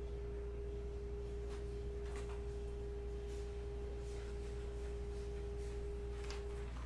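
A steady low electrical hum with a clear, steady tone above it that cuts off shortly before the end, and a few faint clicks.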